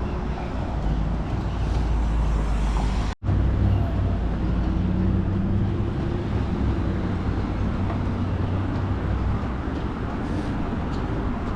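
Road traffic on a city street: a steady low rumble of cars, with a vehicle's engine humming. The sound breaks off for an instant about three seconds in.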